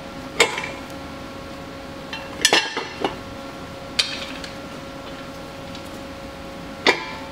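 Irregular sharp metallic clinks of steel bolts being handled and started by hand in an aluminium bell housing and adapter plate, about five clinks spread a second or more apart, one of them a quick double. A steady hum sits underneath.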